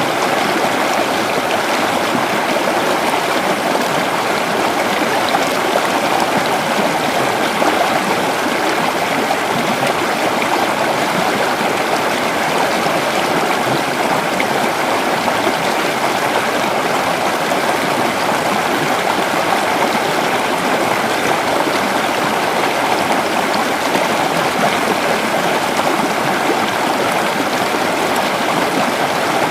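Creek water flowing and burbling over rocks, a steady rushing sound without a break.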